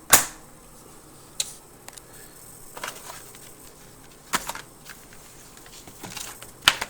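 Paper inserts and packaging from a keyboard box being handled, rustling and crinkling in about six short, sharp bursts, the loudest right at the start.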